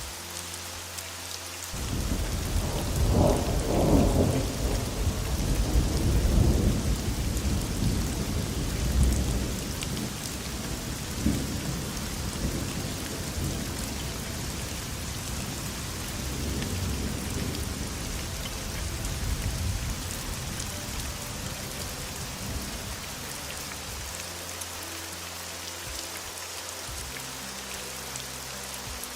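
Steady heavy rain, with a long roll of thunder that starts about two seconds in, is loudest over the next several seconds, and rumbles away over roughly twenty seconds.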